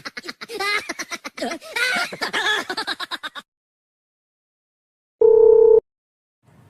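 Squeaky cartoon-character voice chattering and giggling in gibberish for about three seconds, then silence, then a single short electronic beep near the end.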